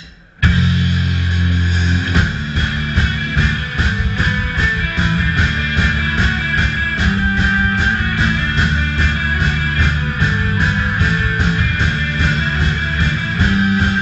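Punk rock band playing live, with electric guitars, bass and drums. The whole band comes in together about half a second in, holding a loud chord briefly, then breaks into a fast, steady driving beat.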